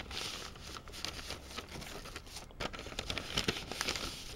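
Paper and cellophane packaging rustling and crinkling under the hands as craft supplies are pulled from a paper bag, a steady run of small crackles with a few sharper clicks.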